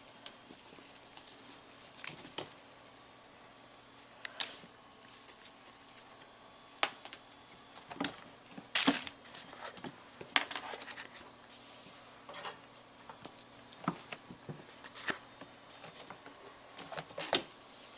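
Kittens playing on a cat tree: scattered light taps, scrabbles and rustles, with a few sharper knocks about halfway through.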